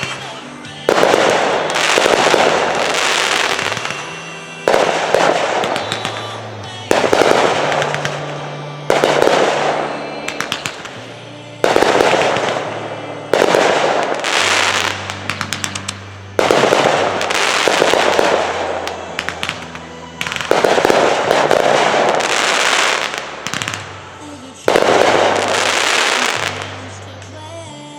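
Aerial fireworks going off one after another, a loud bang every two seconds or so, each dying away over a second or two. Music plays underneath.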